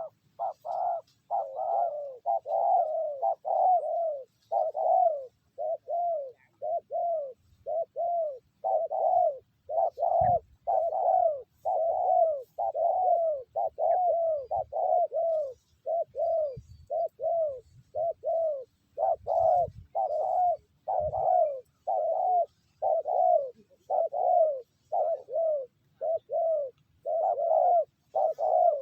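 Spotted dove cooing without a break: a fast, even run of short arched coos, about two a second. A few faint low knocks come in underneath, one about ten seconds in and a couple around twenty seconds.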